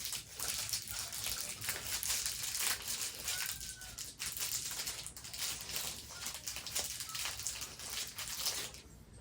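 Plastic packaging crinkling continuously as small fidget toys are handled and pulled from their wrappers, a dense crackle that stops near the end.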